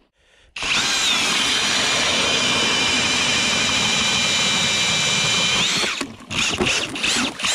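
Ridgid cordless drill turning an ice auger through lake ice: a steady motor whine with the grinding of the auger cutting. Just before it stops, the whine rises in pitch as the auger breaks through the bottom of the ice.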